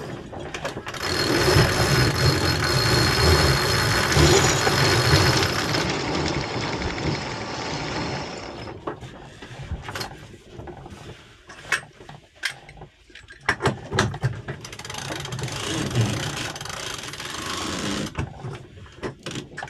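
Sailing yacht's sheet winch and rigging being worked while the sails are set: a steady rushing, grinding noise for the first half, then irregular ratchet clicks and knocks of lines and hardware.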